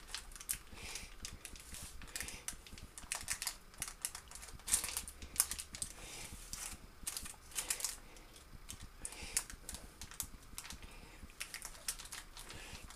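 Metal teaspoon scraping and tapping against a paper-lined foil container as it presses down a soft biscuit-crumb mix: irregular light clicks and scrapes, in bunches.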